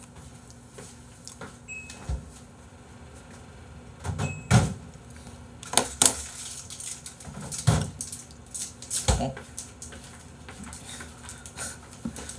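Handling noises at a desk: a scattering of about half a dozen knocks and clicks, with two very short high beeps in the first half.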